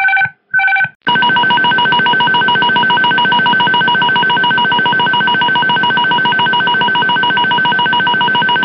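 Airbus A300 cockpit stall warning: a loud, continuous, rapidly pulsing electronic tone at a few steady high pitches, starting about a second in. Before it, two short high beeps close out the autopilot disconnect warning.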